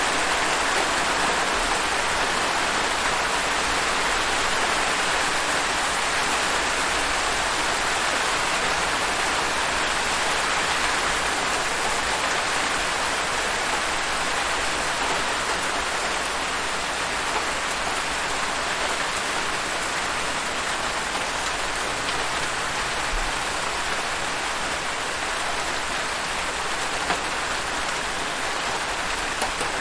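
Steady rain falling, an even hiss with faint scattered drop ticks, easing very slightly in level.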